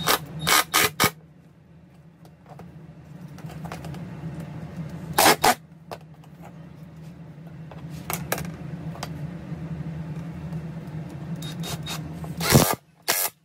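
Cordless drill motor running steadily while drilling through a thin vinyl floor plank. It is broken by several sharp clacks and knocks, and it stops shortly before the end.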